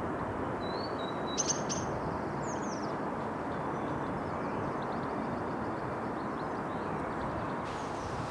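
Small birds chirping a few times over a steady low rumble of distant town noise, with two sharp chirps about a second and a half in, then only faint high calls.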